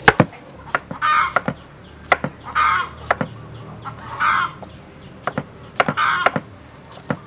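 Sharp knocks of a knife chopping on a wooden cutting board, coming irregularly, with a chicken clucking in short calls about every second and a half.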